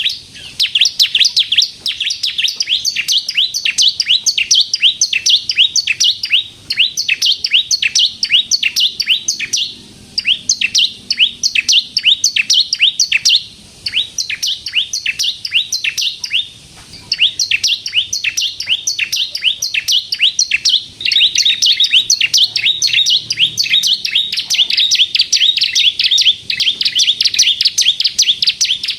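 Bar-winged prinia (ciblek kristal) singing persistently: a rapid, machine-gun-like run of sharp, high, down-slurred chirps, many each second, broken by a few short pauses.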